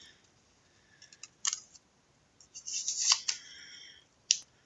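Trading cards and their plastic packaging being handled: a few sharp clicks, a brief rustling scrape about halfway through, and one more click near the end.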